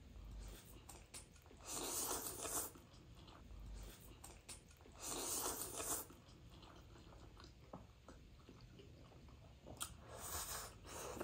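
Instant noodles being slurped and eaten: three slurps, each about a second long, with soft chewing and faint clicks of forks on plates between them.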